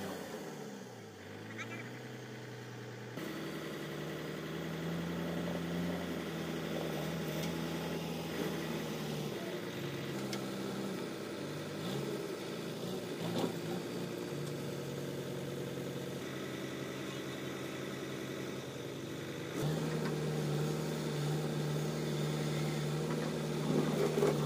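Heavy diesel engine running steadily near idle, with a brief rise and fall in pitch in the first couple of seconds; the pitch and level jump abruptly a few times.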